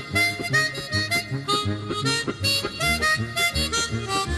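Instrumental background music: a quick melody over low bass notes on a steady beat.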